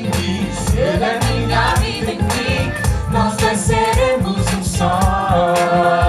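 Background music: a Christian gospel-style song with singing over a full band accompaniment.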